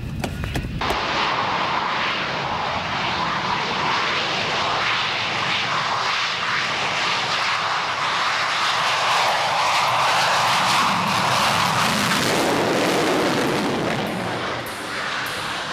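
Dassault Mirage 5 jet fighter's Atar turbojet running at full power with afterburner lit during its takeoff roll: a loud, steady jet noise that cuts in about a second in.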